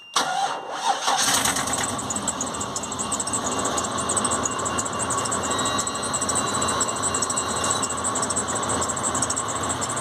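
GM Workhorse RV engine starting and then idling steadily. Under it, the AutoPark parking brake's hydraulic pump motor buzzes for a few seconds and then stops, a sign that the newly fitted pressure switch is now switching it off.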